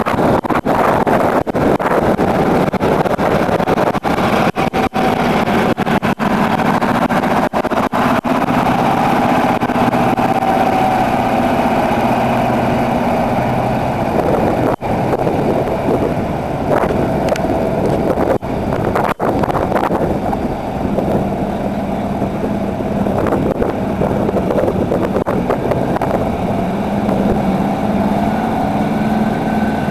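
Diesel engines of tractor-trailer rigs running steadily as the trucks push through flood water, over a continuous rush of noise.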